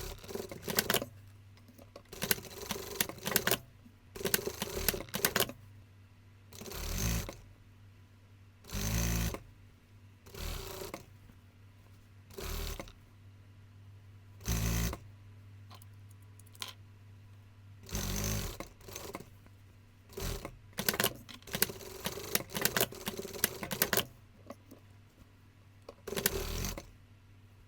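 Sewing machine running in short runs of about half a second to a second and a half, stopping and starting a dozen or so times, with clicks between runs and a steady low hum underneath.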